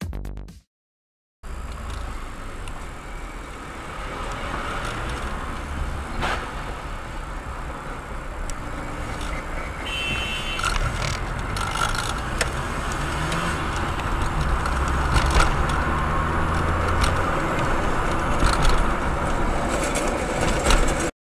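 A car driving, with steady engine and road noise that slowly grows louder, a few light clicks, and the tail of electronic music cutting off in the first second.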